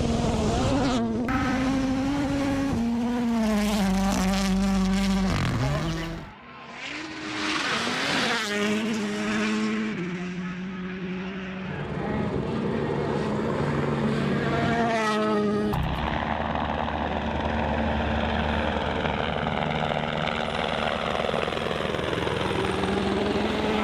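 Rally car engines revving hard, their pitch climbing and dropping again and again through gear changes. Loudness dips briefly about six seconds in, and the last third settles into a steadier drone.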